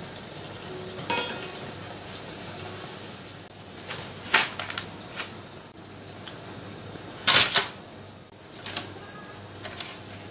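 Light kitchen handling sounds: scattered clinks and knocks of tableware, the loudest about four seconds in and a slightly longer one about seven seconds in.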